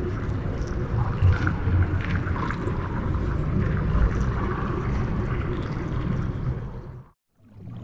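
Underwater diving ambience: a steady, deep wash of noise with faint scattered clicks, fading out to silence near the end.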